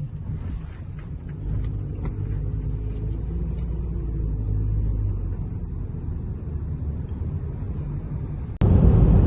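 Steady low rumble of a vehicle in motion, with a faint engine hum, jumping suddenly louder near the end.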